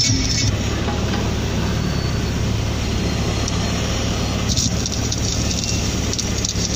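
Van engine idling steadily while stationary, heard from inside the cab as a constant low hum.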